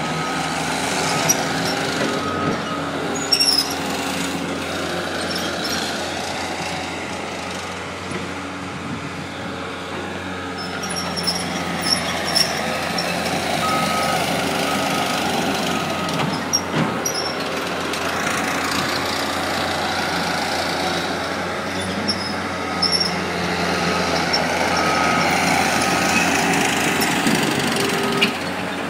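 Construction machinery at work: the diesel engine of a compact track loader running and changing pitch as it grades, with a backup alarm beeping in short runs of about one beep a second, and a few sharp knocks.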